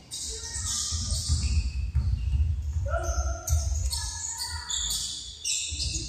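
Basketball game sounds in a large echoing gymnasium: a ball bouncing on the court and the voices of players and spectators.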